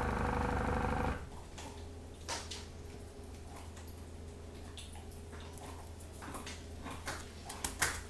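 Small airbrush air compressor running with a steady motor hum, cutting off about a second in. After that only a faint low hum and a few light taps remain.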